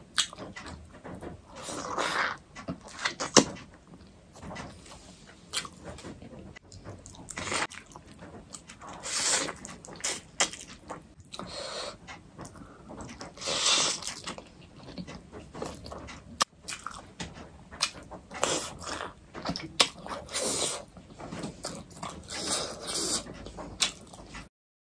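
Close-up eating sounds: wet chewing and slurping of juicy beef momos and black bean noodles, in irregular bursts with short clicks.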